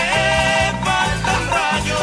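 Background music with a repeating bass line under a melody.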